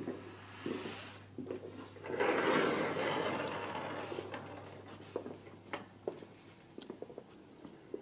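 Footsteps on a wooden stage floor, a scattering of short knocks, with a rustling swell about two seconds in that fades over the next few seconds.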